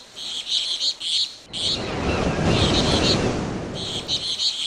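Bird-like chirping in repeated short bursts, joined about a second and a half in by a steady low rumbling noise.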